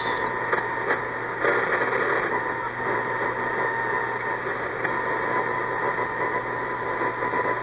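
Speaker of a vintage Cariole six-band portable shortwave radio giving steady static with thin whistling tones between stations as the tuning dial is turned.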